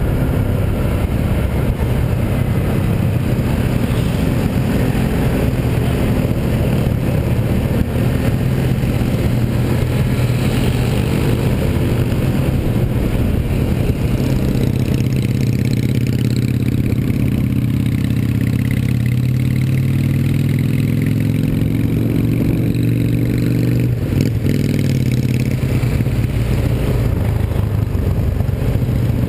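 Small motor scooter's engine running at road speed under the rider, with wind rushing over the action camera's microphone. About halfway through the wind eases and the engine's steady hum stands out, its pitch dipping and rising again as the scooter slows and picks up in traffic.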